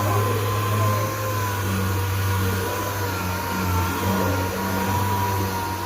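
Power sander running steadily on epoxy primer on a car body panel: a continuous whir with a high whine that wavers slightly in pitch.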